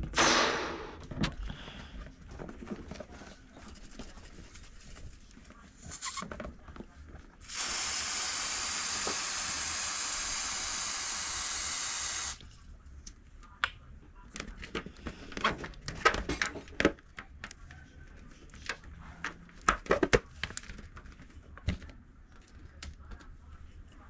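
Pressurised gas hissing steadily out of an aerosol can into a rubber balloon for about five seconds, then cutting off sharply. Scattered clicks and knocks of handling come before and after.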